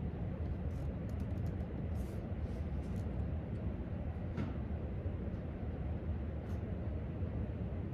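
Steady low rumble of library room ambience, with a few faint, scattered clicks, mostly in the first three seconds and once more near the end, and a brief faint falling squeak about halfway through.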